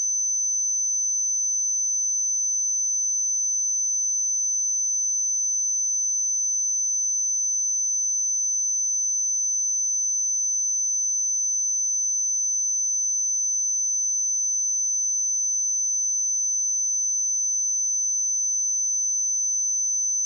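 A pure 6102 Hz sine test tone, one steady high-pitched whistle-like tone held at a constant level.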